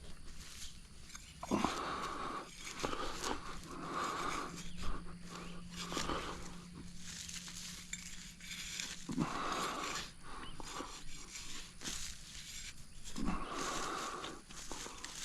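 A man breathing hard and heavily, one loud breath every second or two, with small scuffs and clicks between the breaths.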